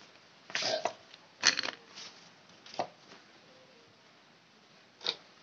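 Short scrapes and knocks of a motorcycle cylinder head and hand tools being handled on a cloth, four separate bursts, the loudest about a second and a half in.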